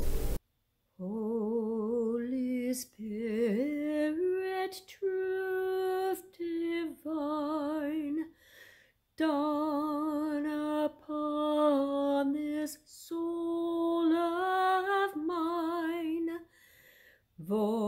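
A woman singing a slow hymn solo and unaccompanied, with a wide vibrato, in short phrases broken by brief pauses for breath.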